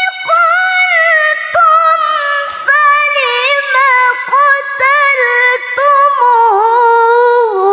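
A young woman's voice reciting the Quran in the melodic tilawah style of a qori'ah: long, high held lines decorated with quick trills and turns, broken by short pauses.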